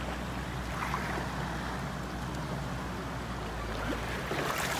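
Small boat engine running steadily, with water and wind noise; the engine stops near the end.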